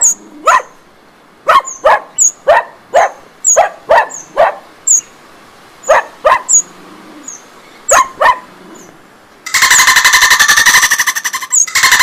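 Fledgling wren calling: a string of sharp, loud chips in uneven clusters, then, about nine and a half seconds in, a loud, fast, continuous rattle.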